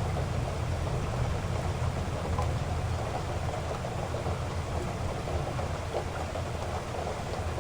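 Heavy rain falling steadily, with a deep rumble under the patter and scattered drop ticks.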